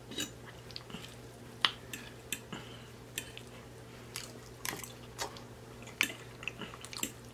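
Close-up sounds of eating: a metal fork clicking and scraping on a plate as soft food is scooped up, and mouth chewing between scoops. A faint steady hum lies underneath.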